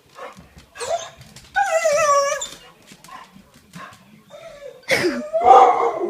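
Dog whining: a short yelp about a second in, a long wavering whine that sags in pitch, then a louder drawn-out whine near the end, with small clicks and snuffles between.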